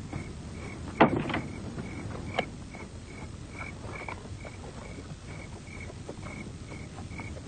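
Crickets chirping in an even, steady rhythm, about two chirps a second at one pitch. A loud sharp knock comes about a second in, and a softer one a second and a half later.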